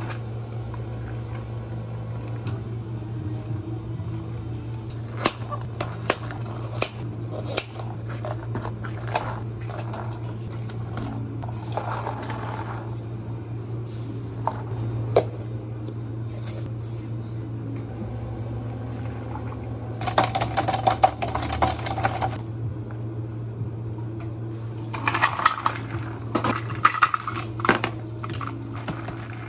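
Drink-making at a cafe counter: scattered clinks and knocks of plastic cups and ice over a steady low hum of equipment. Near the end, ice cubes rattle as they are scooped and tipped into a plastic cup of iced tea.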